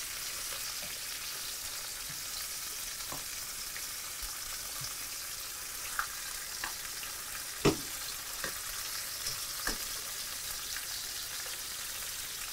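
Porterhouse steaks sizzling in butter in a skillet, a steady frying hiss. A few short clinks of metal utensils against the pan, the sharpest about eight seconds in.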